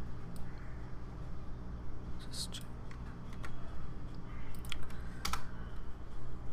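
A few separate clicks of computer keyboard keys, spaced irregularly, over a steady low hum.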